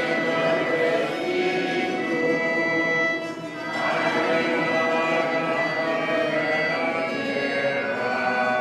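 Church music playing the refrain between psalm verses at Mass: a melody of held notes on instruments, in two long phrases with a short break just past the middle.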